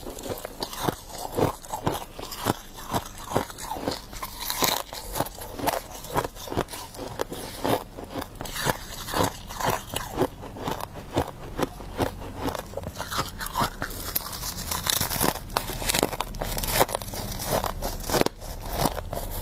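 A person biting and chewing mouthfuls of humidifier frost, with rapid, irregular crunches.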